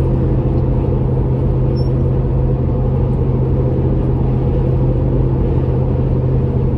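Toyota 4.7-litre V8 running through a Magnaflow Overland stainless cat-back exhaust, heard inside the cabin while cruising steadily at highway speed. A constant low exhaust drone sits over tyre and road noise.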